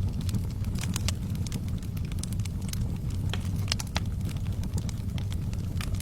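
Wood fire burning in a fireplace: a steady low rumble with irregular crackles and pops.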